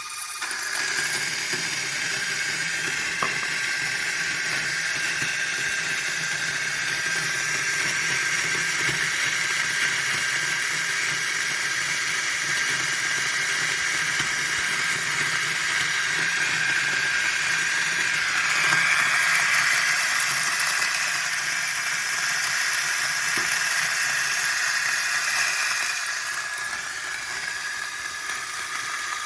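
Zerno Z1 single-dose espresso grinder's motor running with its SSP multi-purpose burrs grinding coffee beans: a steady high-pitched whine over a grinding hiss. The tone shifts about two-thirds of the way through, and the sound drops quieter a few seconds before the end.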